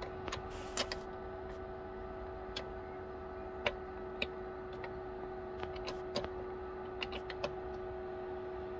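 Stick-welding electrode (6013 rod) tapped and scratched against the sheared wheel nut to strike an arc, giving scattered sharp clicks and brief crackles over a steady electrical hum; the arc does not hold, which the welder puts down to a poor earth.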